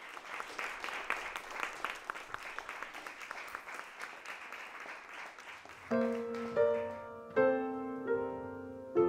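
Small audience clapping, dying down; about six seconds in, a grand piano starts playing, a new note or chord struck every half-second or so and left to ring.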